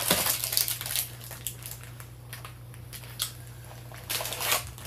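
Crinkly paper rustling in two bursts, one at the start and another about four seconds in, with a few light clicks between: baking paper on a roasting tray being handled.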